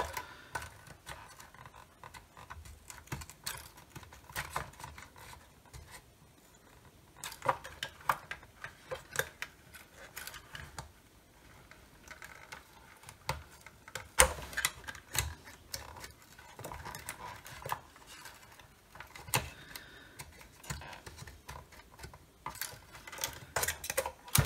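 Irregular clicks, taps and light rattles of a charger circuit board and its wire connectors being handled and worked out of a hard plastic radio housing, with a few sharper knocks along the way.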